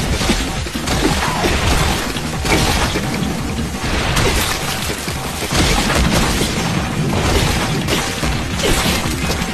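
Anime battle sound effects: a run of heavy crashes and impacts, about one every second or two, as a giant ghostly arm smashes at a swordsman, over background music.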